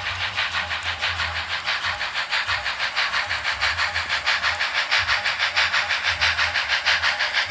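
Model steam locomotive sound: quick, even chuffs of steam hiss, with a faint low rumble of running underneath.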